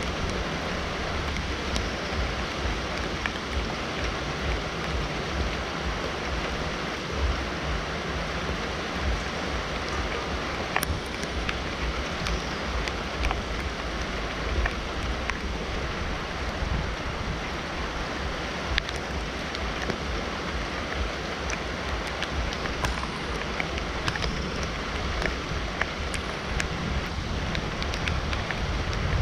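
Steady heavy rain falling, with many scattered sharp ticks of drops striking close by and an uneven low rumble underneath.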